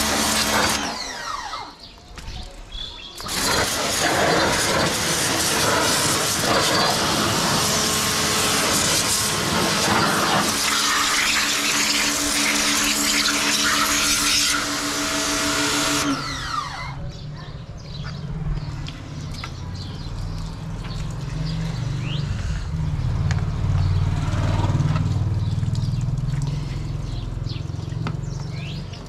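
Ingco 1400W electric pressure washer spraying a plastic wheel cover: a loud hiss of the jet over the pump motor's steady hum. It stops briefly about a second in, starts again about three seconds in and shuts off after about sixteen seconds, leaving a quieter low rumble.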